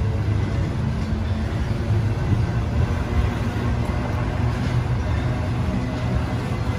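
BNSF freight trains rolling past on adjacent tracks, an intermodal train of trailers on flatcars and a coal train of open hoppers. Steel wheels on rail make a steady low rumble, with a few faint clicks.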